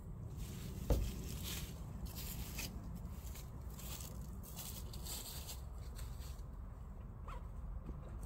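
Footsteps crunching and rustling through dry fallen leaves close to the microphone, with one sharp thump about a second in, over a low rumble.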